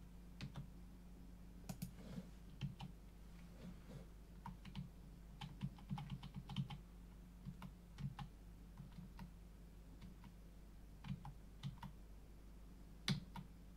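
Faint, irregular clicking of computer keys, single presses and short runs with pauses between them.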